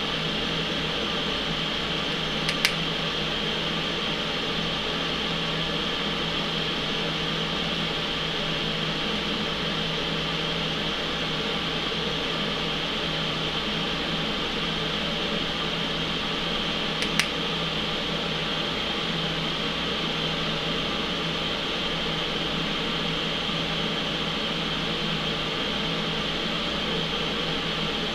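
TIG welding thin CP2 titanium at 25 amps on an Eastwood TIG 200: a steady hiss and hum from the arc, the argon shielding and backing gas, and the welder running. Two sharp clicks break in, about three seconds in and again about seventeen seconds in.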